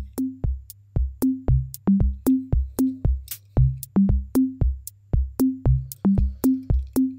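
Background electronic music: a steady drum-machine beat of deep kick drums and sharp clicks over a low bass tone.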